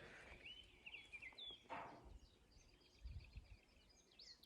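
Near silence outdoors, with faint, repeated bird chirps.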